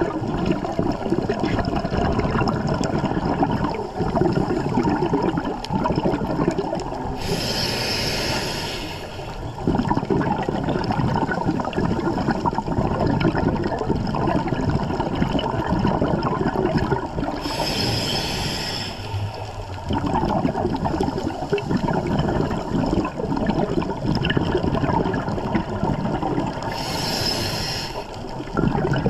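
Scuba diver breathing underwater through a regulator: a constant bubbling, rushing water noise, broken three times about ten seconds apart by a two-second high hiss, with the bubbling dropping away during each hiss.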